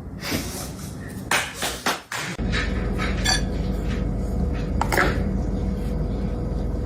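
A string of sharp knocks and clinks, like hard objects clattering together.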